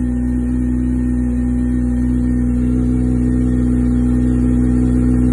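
Kawasaki ZX-25R's 249 cc inline-four engine running through a LeoVince Factory S SBK titanium exhaust, held at steady revs.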